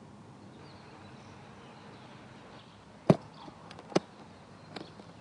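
Clicks from a hand-held case being handled: two sharp clicks about a second apart, with a few fainter clicks between and after them. Before them, about three seconds of faint steady background hiss.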